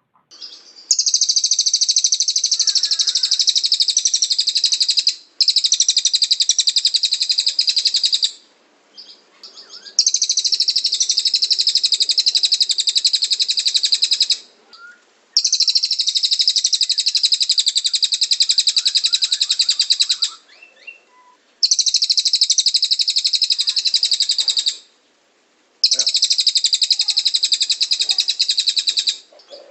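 Cililin bird singing in long, high-pitched, rapid-fire trills ('tembakan'). About six bursts of fast repeated notes, each lasting three to five seconds, with short pauses between them.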